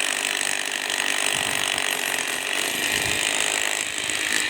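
Power tool working on a reinforced-concrete road, a steady, fast mechanical rattle.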